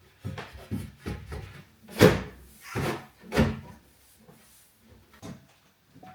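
A string of wooden knocks and clunks from kitchen cupboard doors and drawers being opened and shut, the loudest about two seconds in, with two more close together just after three seconds.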